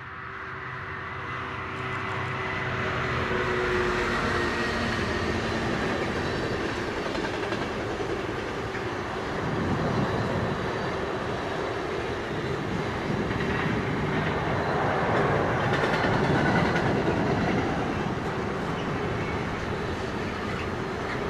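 A Class 66 diesel locomotive hauling a container freight train past. Its engine's steady drone is heard for the first few seconds as it comes closer, then the long train of container wagons rolls by with a continuous rumble.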